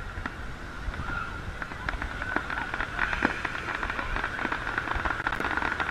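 Fireworks crackling: a dense run of small rapid pops from crackling stars bursting in the sky, growing thicker after about a second and a half.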